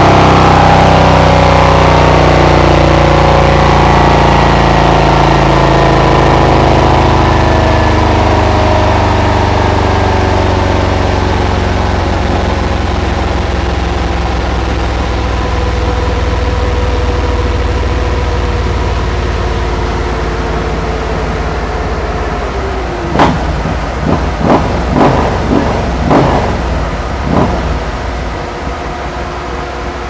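Harley-Davidson Milwaukee-Eight 128-cubic-inch V-twin on a chassis dyno, its pitch and the dyno's whine winding down after a run and then idling as the rolls coast to a stop. Near the end come about six quick throttle blips.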